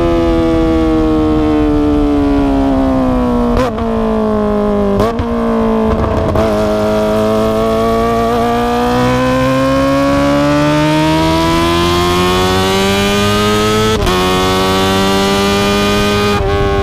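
Kawasaki ZX-25R's high-revving inline-four engine through an Akrapovic exhaust, slowing with three quick throttle-blipped downshifts in the first six seconds. It then accelerates steadily, its pitch rising for several seconds, and shifts up near the end.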